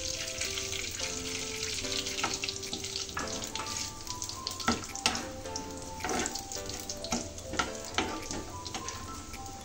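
Oil sizzling in a frying pan as cumin seeds, garlic and whole dried red chillies fry for a tadka, with a steel spoon stirring and knocking against the pan several times. A soft melodic background tune plays along.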